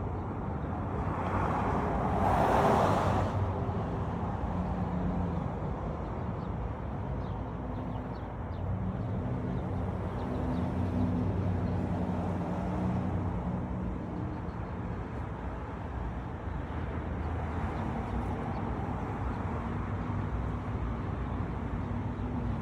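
City street traffic: a steady hum of vehicle engines and tyres, with one vehicle passing close about two seconds in.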